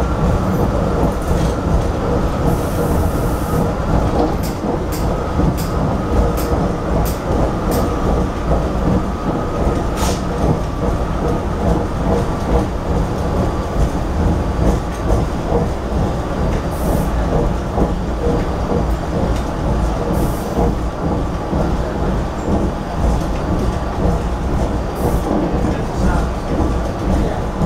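Running noise inside a GE Silverliner IV electric commuter railcar travelling at speed: a steady low rumble of wheels on rail, with scattered clicks and clacks and a faint steady whine.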